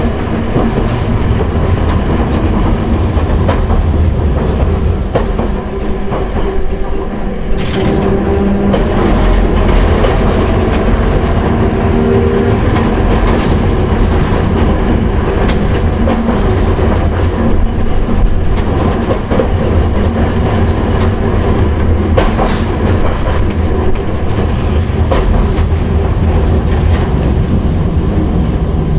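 Hankai Tramway Mo 161-class tram running along the track, its nose-suspended (tsurikake) traction motors and gears droning steadily over the rumble of the wheels on the rails, heard from inside the car. A brief sharp noise cuts through about eight seconds in.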